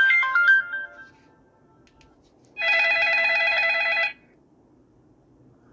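Mobile phone's loudspeaker playing a ringtone: a stepping melody that ends about a second in, then a steady warbling ring tone for about a second and a half. The speaker has just been cleaned of iron dust, and the sound is clean with no rattle: the distortion is cured.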